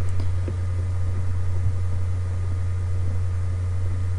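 Steady low electrical hum with a faint hiss behind it: the recording's background noise. One faint click comes about a second and a half in.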